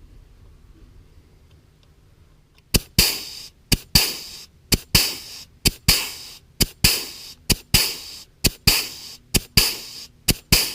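Hand-pumped grease gun forcing grease into a freshly fitted feed-wagon bearing, starting about three seconds in. It goes in about nine even strokes, roughly one a second, each a sharp click followed by a short hissing squirt.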